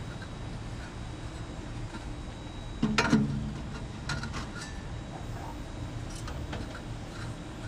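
A single metallic clank about three seconds in, then a few light clicks, as steel grill parts are set into a Weber Genesis gas grill's firebox, over a steady low hum.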